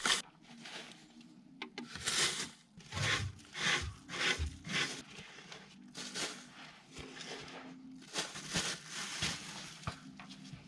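Gloved hands scraping and sweeping straw-like mouse-nest debris and loose soil off a dirt crawlspace floor: a series of separate rough scraping strokes, with a quicker run of strokes near the end.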